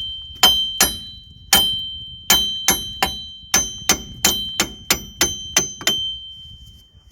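Hammer striking the rear wheel bearing cassette of a 2007 Toyota Yaris to drive it out: about fifteen sharp metal-on-metal blows, two to three a second, each leaving a high ringing tone. The blows stop about six seconds in and the ring fades.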